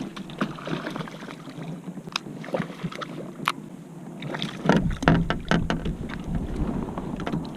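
Scattered knocks and clicks of gear being handled in a kayak, with a burst of heavier thumps and wind rumble on the microphone about five seconds in.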